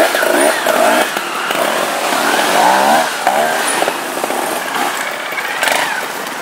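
Trials motorcycle engines revving in short blips, their pitch rising and falling again and again as the bikes are throttled on and off down a steep slope; more than one bike is running at once.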